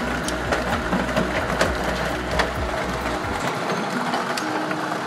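Heavy hail pelting pavement and parked cars: a steady dense clatter of many sharp impacts. A low rumble under it stops about three and a half seconds in.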